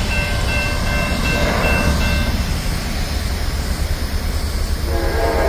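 Grade-crossing warning bell ringing over the low rumble of an approaching CSX freight train; the bell fades under the train noise about two seconds in. Near the end the locomotive's horn starts to sound.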